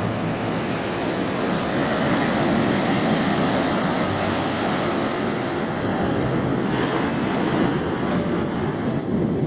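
Ocean surf washing onto the beach, a steady rush of waves with wind buffeting the microphone.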